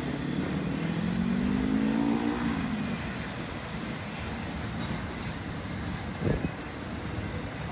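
Intermodal freight train's cars rolling past with a steady rumble. Between one and two and a half seconds in, a pitched motor sound rises, like a road vehicle accelerating, and a single sharp thump comes a little after six seconds.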